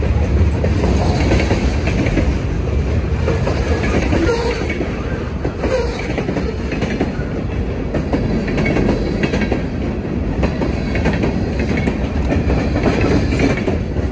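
Freight train cars rolling past on a steep grade: a steady rumble of steel wheels on rail, with repeated clicks as the wheels cross the rail joints.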